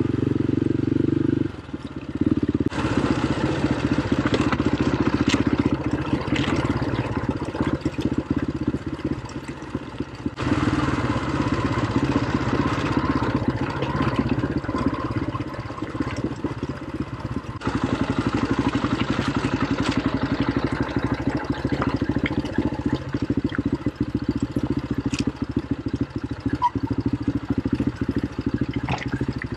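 Quad bike (ATV) engine running as it is ridden over rough trail, with rattling and clatter from the machine. Its level dips briefly about a second and a half in.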